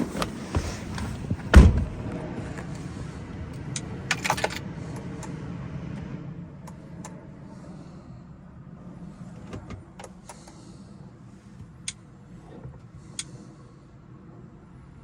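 A car door shutting with one heavy thump about a second and a half in, amid sharp clicks and small handling noises that thin out later, over a steady low hum.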